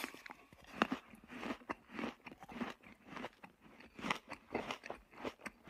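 Cartoon eating sound effect: a quick run of crunching bites and chewing, about three a second.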